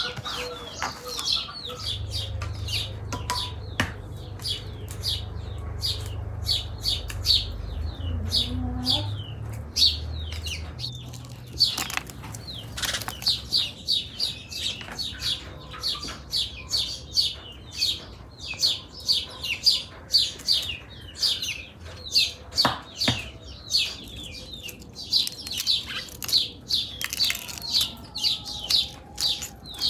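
Small birds chirping rapidly and repeatedly, short high chirps several a second throughout. A low hum sits underneath for the first ten seconds or so.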